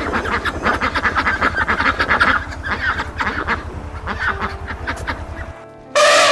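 A flock of ducks quacking in a dense, rapid chatter of overlapping calls, which cuts off suddenly about five and a half seconds in. A much louder single call starts just at the end.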